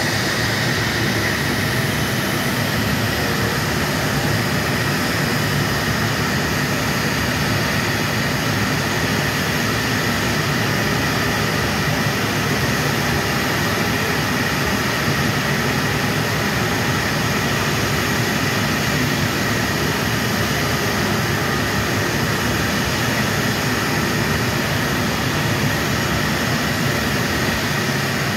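Steady jet whine of a Boeing 737-700 standing at the gate, an even rushing noise with a constant high-pitched tone.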